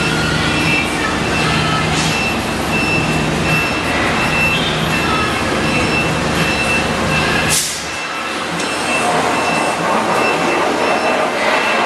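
Hydraulic CNC press brake running: steady pump and motor noise with a low hum and a faint high whine. About two-thirds of the way through there is a brief hiss, after which the low hum drops away.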